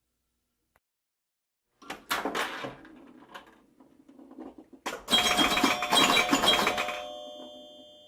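Bell-like chimes: a jangling cluster of strikes about two seconds in, then a louder burst about five seconds in whose tones ring on and slowly fade.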